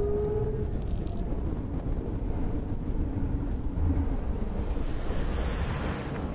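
A bass boat running across the lake: wind buffeting the microphone over the rush of water along the hull and the hum of the outboard. The noise eases off near the end as the boat slows.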